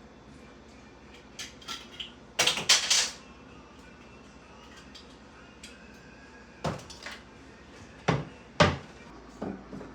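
Kitchen cabinet doors and dishes knocking and clattering: a string of separate clunks, loudest in a cluster about two and a half to three seconds in, with several more in the second half.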